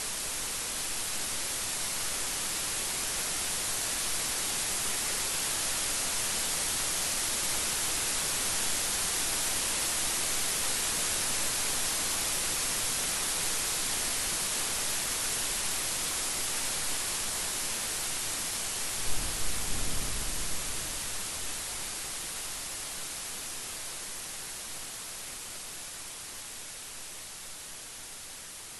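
Steady heavy rain hiss that swells slightly and then eases toward the end. About two-thirds of the way through, a short low rumble of thunder with a few sharp cracks lasts a couple of seconds.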